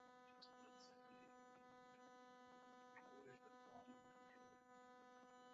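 Near silence with a faint, steady electrical hum made of many evenly spaced tones.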